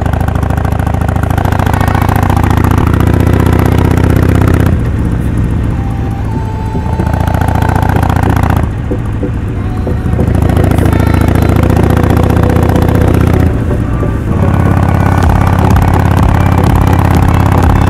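Harley-Davidson XL1200X Forty-Eight's air-cooled 1200 cc V-twin running under load through a Rinehart 3-inch slip-on exhaust with a quiet baffle. The revs climb and then fall back several times as the throttle is opened and closed.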